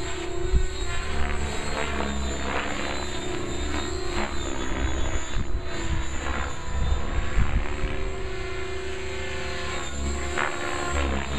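Compass 6HV electric radio-controlled helicopter flying aerobatics: the rotor blades whirring and the motor whining, with the pitch of the sound swooping up and down as it manoeuvres, and a sharp blade swish near the end.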